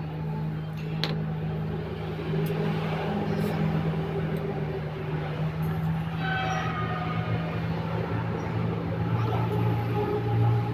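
A steady low mechanical drone with a sharp click about a second in and faint voices briefly in the middle.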